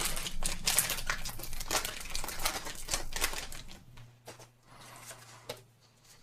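Foil Pokémon booster-pack wrapper crinkling and tearing as it is opened: a dense run of crackles for about three and a half seconds, then only faint handling.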